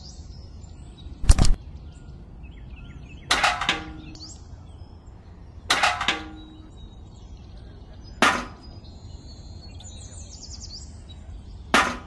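Five sharp knocks, about two to three seconds apart, two of them with a short metallic ring. Faint bird chirps underneath.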